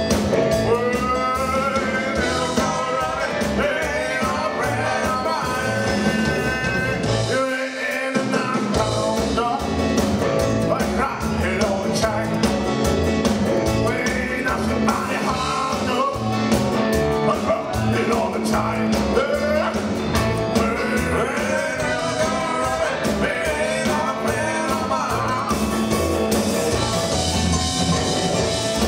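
Live rockabilly band playing: hollow-body electric guitar, upright bass, keyboard and drums, with a lead melodic line on top. The bass and drums stop for about a second roughly seven seconds in, then the band comes back in.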